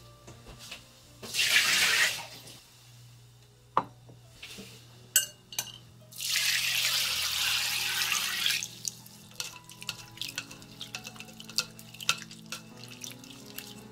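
Water poured over bracken fern shoots in a metal mesh sieve set in a glass bowl: a short pour about a second in, a few clinks, then a longer stream of running water from about six seconds. Near the end comes dripping and the wet rustle of the shoots being rubbed clean by hand, as they are rinsed after their baking-soda soak. Soft background music runs underneath.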